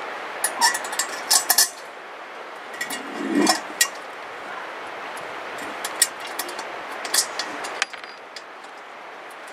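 Small metal hardware and grill parts clinking and clicking as they are handled and fitted during assembly of a Weber Smokey Joe kettle grill, in scattered clusters of sharp clicks, with a duller knock a few seconds in.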